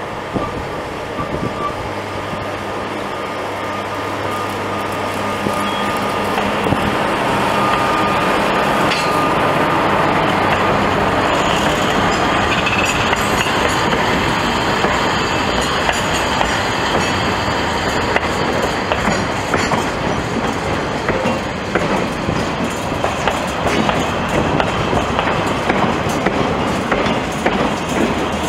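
A train passing close by: an SNCF BB 22200-class electric locomotive hauling a failed RRR regional set. A steady hum lasts about the first ten seconds, then the coaches roll past with wheels clicking over rail joints.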